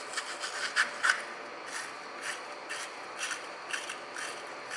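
Small wire brush scrubbing back and forth inside the PCV port of a 2012 Chevrolet Cruze's intake manifold to clean it out, a quick scratchy stroke about twice a second.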